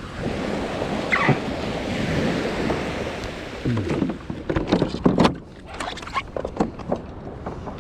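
Waves washing and wind buffeting the microphone, with a cluster of knocks and thumps about halfway through.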